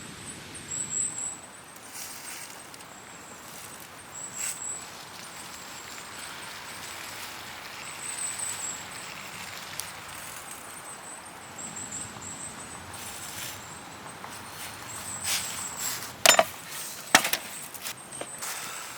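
Steady outdoor background hiss with thin, high chirps recurring every few seconds, and two sharp knocks about a second apart near the end, the loudest sounds.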